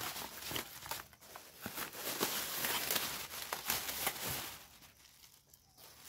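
Rustling and crinkling, with many small clicks, that dies down about four and a half seconds in.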